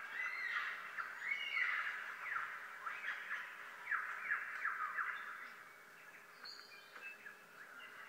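Bird-like whistled song: a run of quick falling and rising whistles, loudest in the first half and fainter later, with a short higher chirp near the end.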